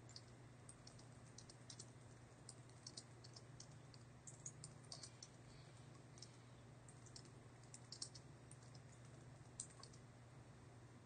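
Faint computer keyboard typing: irregular runs of soft keystrokes, over a steady low electrical hum.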